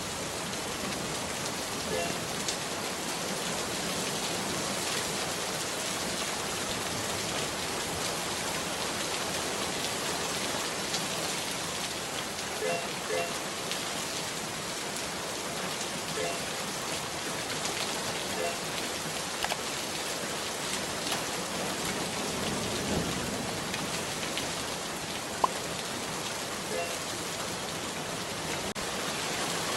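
Steady hiss of falling rain, with several brief faint chirp-like tones and one sharp click about 25 seconds in.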